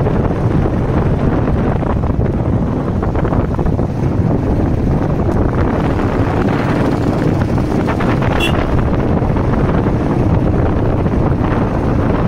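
Wind buffeting the microphone on a moving Royal Enfield motorcycle, with the engine running steadily underneath. A short high beep sounds about eight seconds in.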